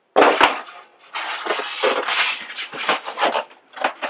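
A couple of sharp knocks, then about two and a half seconds of continuous scraping and rubbing as a small Monoprice Select Mini 3D printer is pulled out of its styrofoam packing insert, ending in a few light clicks.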